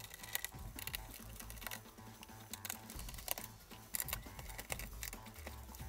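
Irregular light clicks and ticks of a small Phillips screwdriver working screws out of a laptop's plastic bottom cover, with the small screws being handled.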